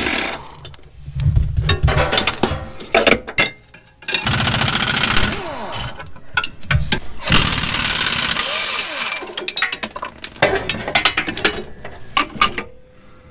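Pneumatic impact wrench hammering on the upper rear control arm bolt in several long bursts with short pauses between, working the rusted bolt loose.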